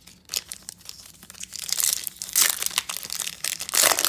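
Foil trading-card pack wrapper being torn open and crinkled by hand, the crackling growing denser and louder in the second half.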